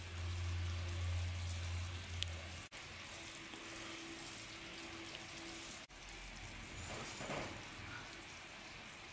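Sugar syrup of sugar, water and lemon juice simmering in a frying pan on an electric hot plate: a faint, even sizzling hiss as the sugar melts on its way to caramel. A low hum sits under it for the first couple of seconds.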